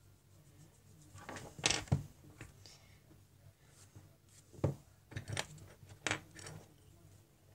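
Coloured pencils being picked up and set down on a wooden desk: a handful of light clicks and clatters, a small cluster about two seconds in and a few single knocks later on.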